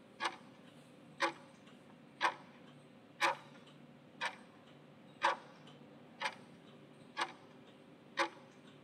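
Countdown-timer tick sound effect: nine sharp clock ticks, one a second, marking the seconds of the countdown.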